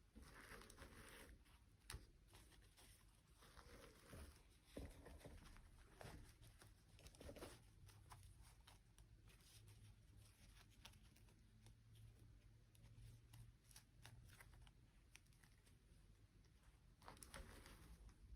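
Very faint handling sounds: soft rustling with scattered light clicks and taps.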